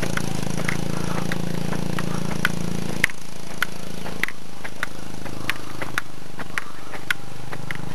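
Footsteps on a dirt road, a little under two steps a second, with a motorcycle engine running steadily up ahead; the engine sound drops away about three seconds in and is gone a second later.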